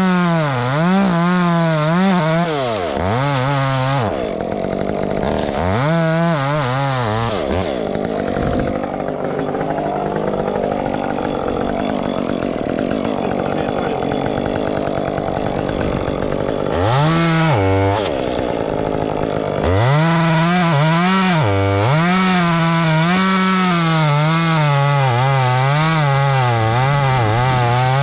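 Two-stroke chainsaw cutting wood at high revs, its pitch wavering as it loads and unloads in the cut. The throttle drops off briefly about three times. For several seconds in the middle the clear engine note gives way to a rougher rushing noise.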